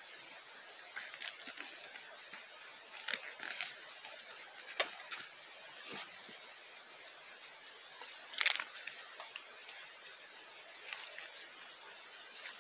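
Steady high-pitched drone of forest insects, with scattered sharp clicks and crackles, the loudest about two-thirds of the way through.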